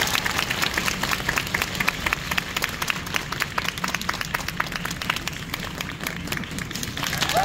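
Audience applause in an ice rink: many hands clapping at a fairly even level, the separate claps distinct.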